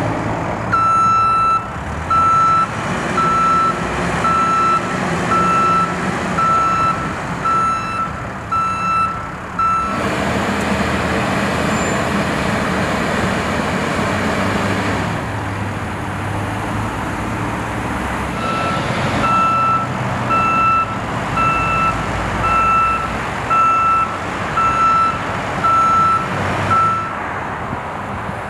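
Reversing alarm on a construction vehicle beeping about once a second over its running engine, in two spells with a pause of several seconds between them.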